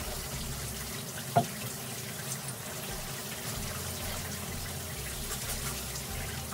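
Water running steadily from a bathtub faucet as hair is washed under it, with one brief knock about a second and a half in.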